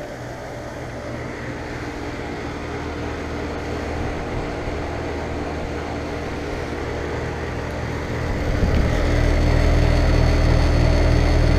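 Outdoor condensing units of Comfortmaker central air conditioners running with a steady hum of compressor and fan. About eight seconds in the sound gets much louder, with a heavy low rumble of fan air.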